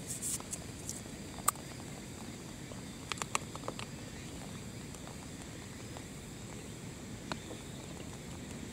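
Steady light rain falling, an even hiss, with a few small sharp clicks and taps: one about a second and a half in, a short cluster around three seconds in, and another near the end.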